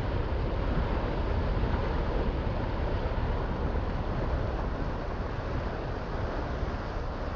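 Steady rushing noise of wind and water aboard a sailboat under way, heaviest in the low end, with no distinct tones or knocks.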